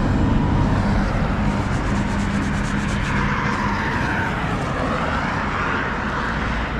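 Motorcycle riding at speed on an expressway: steady engine hum under a broad rush of wind and road noise, which swells for a couple of seconds in the middle.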